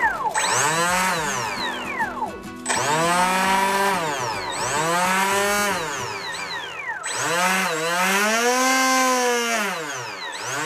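Rage Black Marlin RC speedboat's brushless motor spinning its propeller out of the water, whining up and falling back in pitch several times as the throttle is run up and let off.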